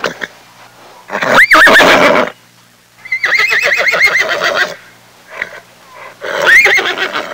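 Horse neighing three times: a short whinny about a second in, a longer quavering whinny from about three seconds, and another short one near the end.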